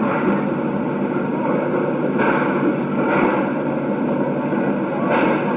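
Narrow-gauge steam tank locomotive running slowly: a steady rushing noise with a few exhaust chuffs about two, three and five seconds in.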